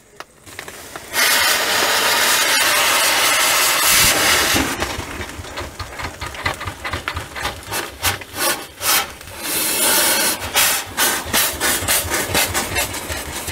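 1920 Huber steam traction engine with its cylinder cocks open. A steady hiss of steam starts about a second in, then the engine begins turning over, giving a run of rhythmic chuffs of steam and exhaust.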